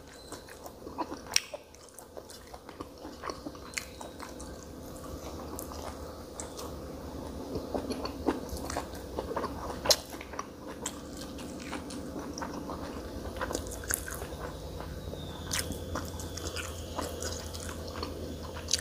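A person chewing sticky rice, greens and fish with open, wet mouth sounds and small crunchy clicks, close to the microphone. A faint steady hum runs underneath and grows louder in the last few seconds.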